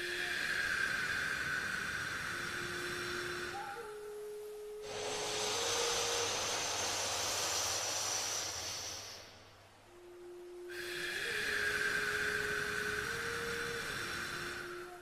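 A person breathing slowly through the nose in alternate-nostril pranayama: a long exhale, a short pause, a long inhale from about five to nine seconds, then another long exhale to the end. Each breath lasts about four seconds. Underneath are faint, held musical tones that change pitch slowly.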